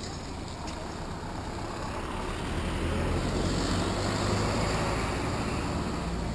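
Street traffic noise mixed with wind rushing over a moving bike-mounted camera's microphone, with a low rumble that swells a few seconds in and eases off.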